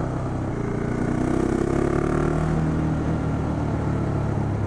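The 2012 KTM 690 Duke's single-cylinder engine running steadily under way as the bike climbs. Its pitch rises slightly about a second in, then eases back a little past the middle.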